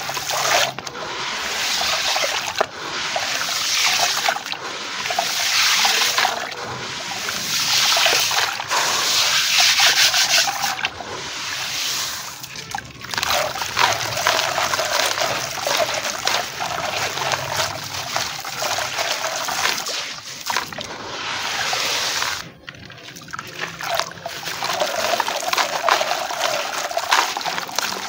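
Crumbled stone grit and small chunks pouring from hands into a basin of water: a continuous gritty, crackling splash-trickle, broken by a few brief pauses, the longest about three quarters of the way through.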